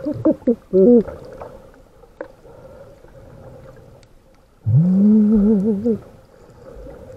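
A snorkeler humming a wavering tune into the snorkel, muffled: a few short sliding notes in the first second, then a long held note with a quaver in it about five seconds in.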